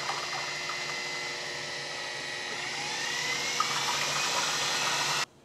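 Electric food processor motor running steadily as it blends a peanut dressing of oil, peanut butter, vinegar, garlic and honey; its whine rises slightly in pitch about halfway through, and the motor cuts off suddenly near the end.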